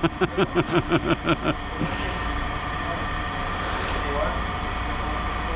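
A person's voice in a quick rhythmic run of short pitched sounds, stopping about a second and a half in, over a steady low rumble of machinery.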